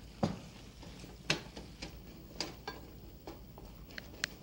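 Wooden spatula stirring thick mushroom and cream sauce in a metal saucepan, with irregular light knocks of the spatula against the pan, the first the loudest.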